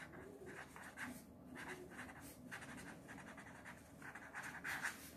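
Marker pen writing on a sheet of paper: a faint run of short scratchy strokes, one after another, as a word is written out.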